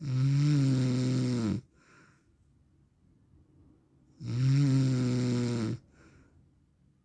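A man snoring: two long, pitched snores about four seconds apart, each followed by a short, faint breath.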